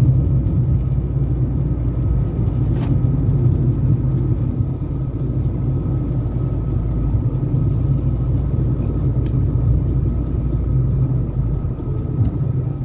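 Steady low rumble of a car driving, heard from inside the cabin, easing off near the end.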